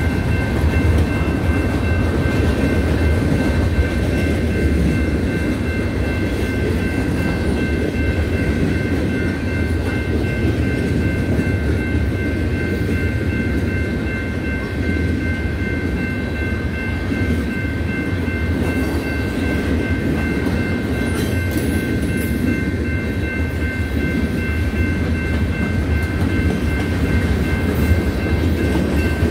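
Freight cars of a manifest train rolling past at speed: a steady, heavy rumble of steel wheels on rail, with steady high-pitched tones held above it.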